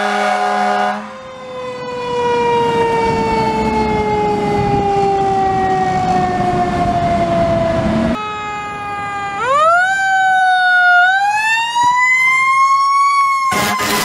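Fire-rescue ambulance siren. A steady horn-like blast at the start gives way to a long wail that falls slowly in pitch for several seconds. After a break, a siren sweeps sharply up in pitch, dips, and rises again to a peak, and a loud blast cuts in just before the end.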